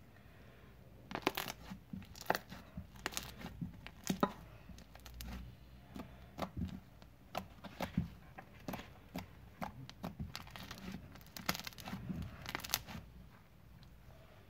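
Slime being squeezed and worked by hand, giving irregular sticky crackles and pops, several a second, that stop about a second before the end.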